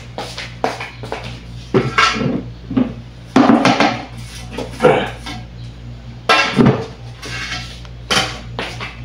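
Kitchenware being handled: pots, dishes and cutlery clattering in irregular knocks and scrapes over a steady low hum.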